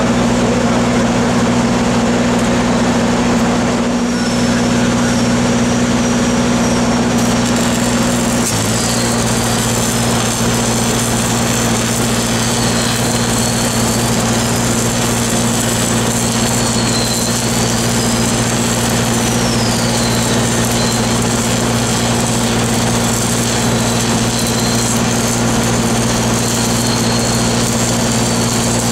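Engine-driven welding machine running steadily under the crackling hiss of two stick-welding (SMAW) arcs burning on a large steel pipe joint. About eight seconds in, the engine note shifts.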